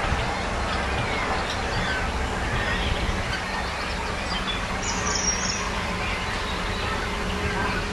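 Wild birds calling and singing, many short chirps and whistles overlapping, over a steady low rumble of distant traffic.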